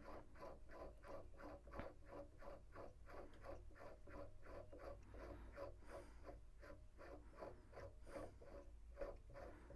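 Faint, rhythmic scratchy rubbing at about three to four strokes a second as a cue ball shifter knob is unscrewed by hand, its threads turning.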